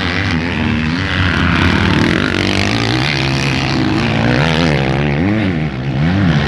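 Several motocross bikes' engines racing, pitch rising and falling as the riders rev through the gears and off the throttle, with the sound of more than one bike overlapping.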